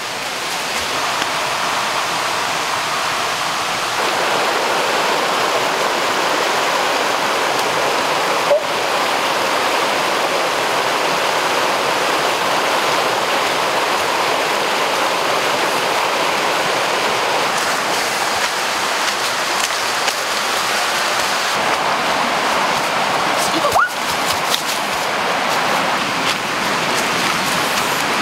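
A small rocky stream rushing over stones: a steady wash of running water. Two brief sharp clicks cut through it, once about a third of the way in and once near the end.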